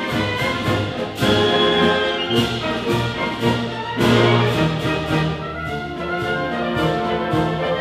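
Symphony orchestra playing a classical piece, with sustained brass chords prominent and strong swells about a second in and again about four seconds in.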